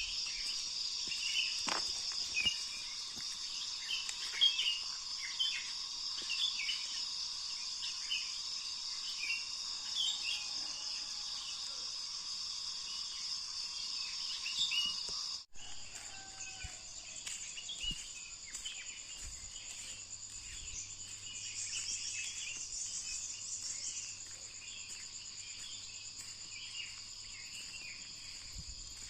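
A steady, shrill chorus of insects such as crickets, with many short bird chirps over it. About halfway through it cuts off abruptly and resumes a little quieter.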